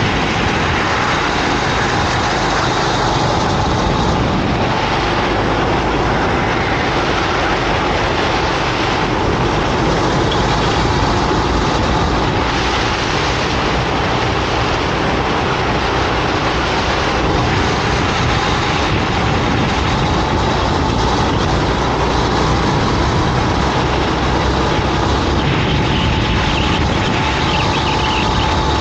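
Go-kart engine running hard during a race, its tone wavering slightly up and down, under a steady rush of noise.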